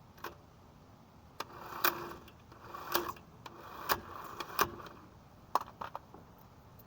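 Irregular sharp clicks and knocks with short scraping sounds, about eight in all and spaced unevenly, from hand tools being handled at a tyre repair.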